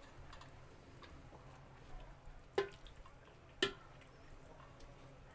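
Covered cooking pot simmering, with two sharp ticks about a second apart, each with a short ring, over a faint low hum.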